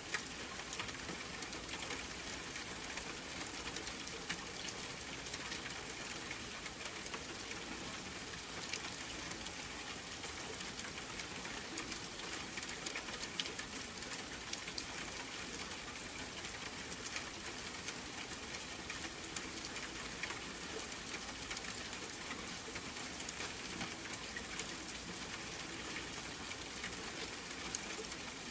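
Steady rain falling, an even hiss with many small drop ticks and the odd louder drip.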